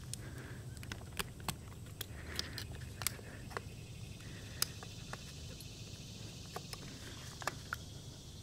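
Irregular small metallic clicks and taps as snap-ring pliers grip and work the retaining snap ring off the clutch coil of an AC compressor, with a steady low hum underneath.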